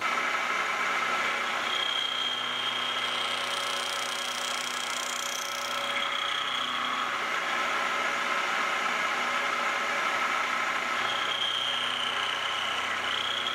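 Milling machine running with an end mill cutting a small flat into a steel shaft, the seat for a set screw. The machine sound is steady, with a high thin whine from the cut that fades in about two seconds in, drops out around seven seconds, and returns near the end.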